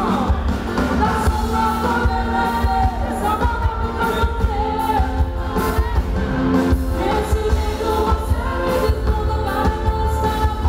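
A woman singing lead over a live sertanejo band, with a steady drum beat and heavy bass beneath her held notes, amplified through a concert PA.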